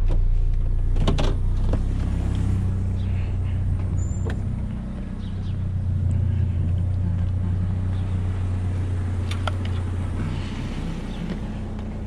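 GMC Sonoma pickup's engine idling steadily, with a couple of door clunks about a second in and a few light knocks later.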